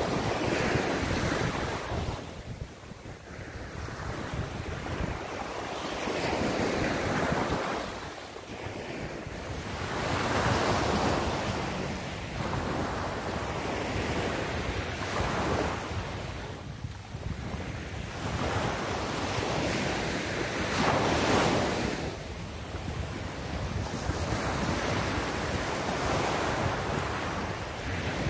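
Small waves breaking and washing up a sandy beach, swelling and fading about once every four to five seconds. Wind rumbles on the microphone underneath.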